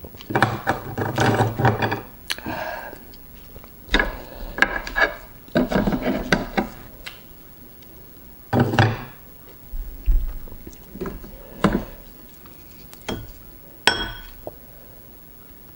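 Close-miked eating of raw oysters: oyster shells and utensils clicking and clattering against a plate, between short bursts of eating sounds.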